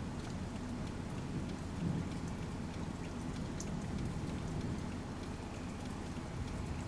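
Heavy rain falling steadily, with scattered close drop hits over a low rumble.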